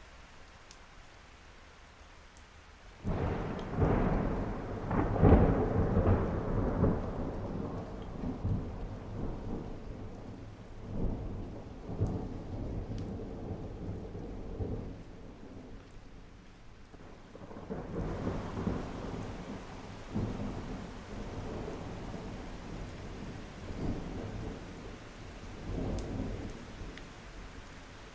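Rain falling steadily with thunder: a sudden clap about three seconds in that rolls and rumbles in waves for over ten seconds, then a second long rumble about two-thirds of the way in that fades near the end.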